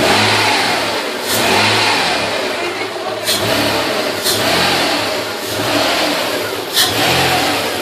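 Audi A6 V6 engine revved in repeated swells, drawing air through an open K&N cone air filter. A few brief sharp noises come on top.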